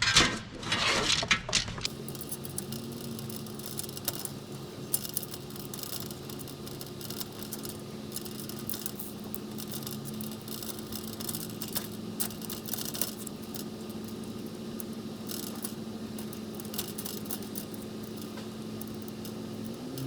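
Light metal clinks, taps and scrapes as avionics mounting trays and their hardware are handled and fitted together, loudest in the first two seconds, over a steady low hum.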